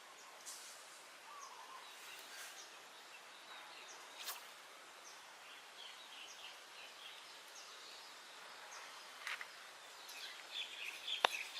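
Outdoor ambience with small birds chirping on and off in short calls, busier near the end, and a few sharp clicks, the loudest one near the end.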